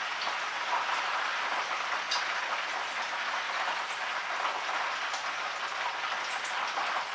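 Chicken pieces frying in hot oil in a pan: a steady sizzle with a few faint crackles.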